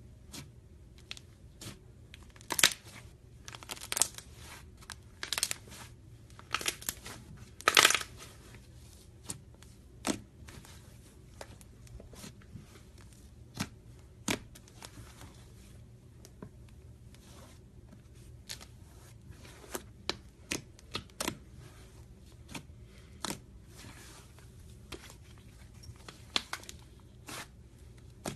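Slime being played with by hand: irregular sticky pops and clicks. The louder ones come in clusters in the first eight seconds, then single pops follow at scattered intervals.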